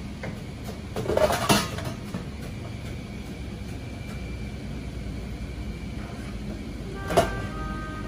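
Ramen shop kitchen: a steady low rumble of kitchen equipment, with a short clatter of bowls and utensils on the steel counter about a second in and a single sharp click near the end.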